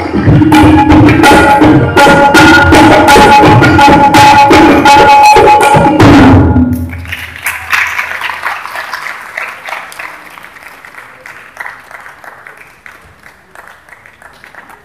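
Tabla solo in teentaal with harmonium accompaniment: a fast, dense run of tabla strokes over the harmonium's steady repeating melody, ending about six seconds in with a final stroke and a falling bass glide. Audience applause follows and gradually fades.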